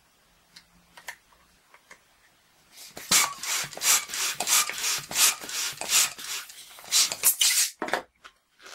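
Hand balloon pump inflating a 260 twisting balloon: a few faint clicks at first, then from about three seconds in a run of noisy pump strokes, about two a second, until the balloon is full near the end.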